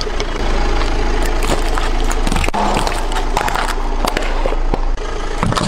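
A car tyre rolls over paving stones and crushes objects under it, with dense crackling and crunching over the steady low running of the car.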